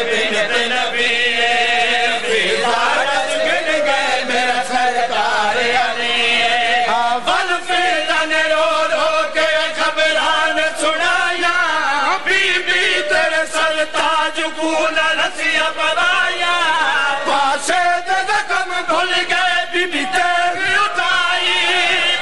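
A man chanting Punjabi mourning verse in long, wavering held notes with sliding pitch.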